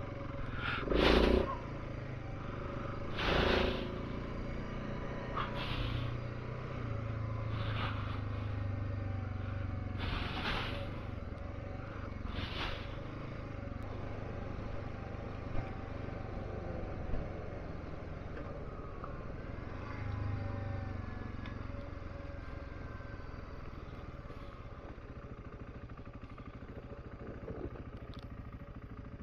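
Dual-sport motorcycle engine running steadily under way, with a short loud knock about every two seconds in the first half.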